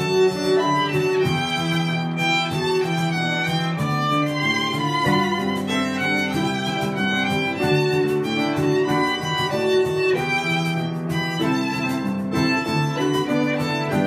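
Live instrumental ensemble: two violins playing a sustained melody in harmony over piano accompaniment, with a light beat from a hand drum.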